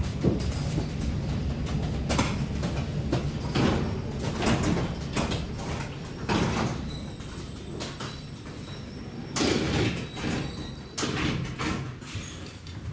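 Irregular clunks and knocks over a low rumble inside an Aeroexpress train carriage.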